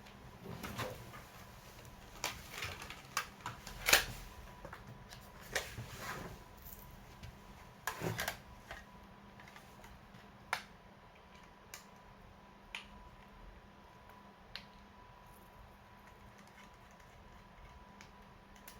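Scattered small clicks and taps from handling the parts of an opened laptop. They come thickly in the first half, with the loudest click about four seconds in and a short cluster near eight seconds, then thin out to occasional single ticks.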